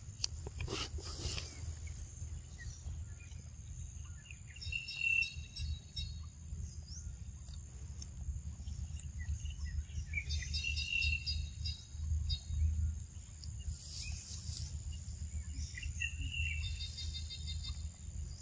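Outdoor ambience: a steady high insect drone, with a chirping bird call that repeats about every six seconds over a low rumble. A few short crackles come near the start and again about two-thirds of the way through.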